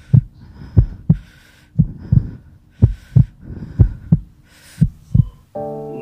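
Heartbeat sound effect: a thudding double beat about once a second. Near the end a sustained held chord comes in.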